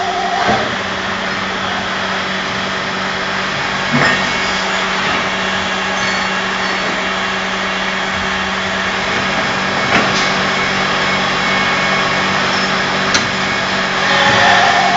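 Multi-spindle drilling machine with hydraulic slides running with a steady mechanical hum, broken by a few short knocks, the clearest about four and ten seconds in.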